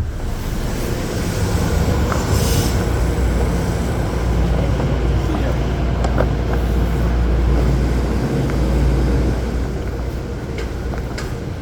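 Passenger train rolling on the rails, a steady low rumble with scattered clicks and a short hiss about two and a half seconds in.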